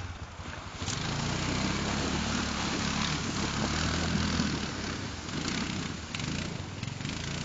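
Honda TRX Rincon 680 ATV's single-cylinder engine running steadily under throttle while the quad drives through a shallow stream. Its tyres throw up splashing water, which joins the engine about a second in.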